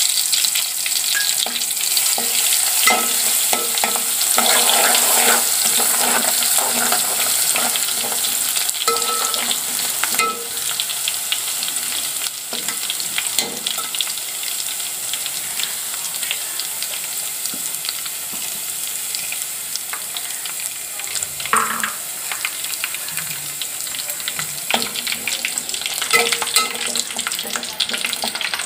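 Crushed garlic and bay leaves sizzling in hot oil in a metal pot, stirred with a steel spoon that clicks and scrapes against the pot. The sizzle is loudest in the first several seconds and eases a little after that.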